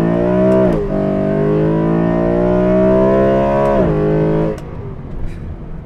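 BMW E93 M3's 4.0-litre V8 accelerating hard with its exhaust valves closed, heard from inside the cabin with the hardtop up. The engine note climbs, drops sharply at an upshift a little under a second in, then climbs again for about three seconds. It drops at a second upshift and falls away after about four and a half seconds.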